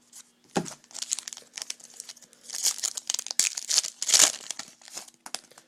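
Baseball card pack wrapper being torn open and crinkled by hand, in irregular rustling bursts that are loudest around the middle.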